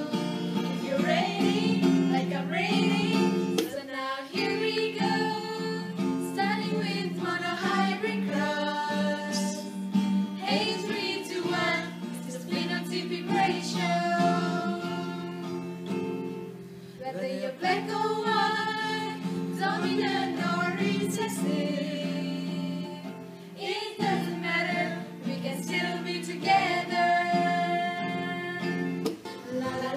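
Several women singing together to an acoustic guitar, with short breaks between sung phrases.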